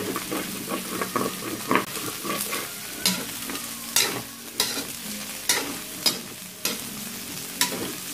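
Pieces of boiled pork frying and sizzling in hot fat in a metal wok, being browned, while a metal spatula stirs them and scrapes and knocks against the pan several times.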